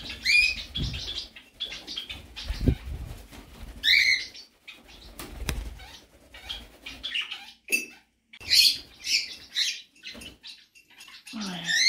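Pet parrots and parakeets flapping their wings as they fly about and chase each other, with a few short chirping calls that swoop in pitch, one near the start, one about four seconds in and one near the end.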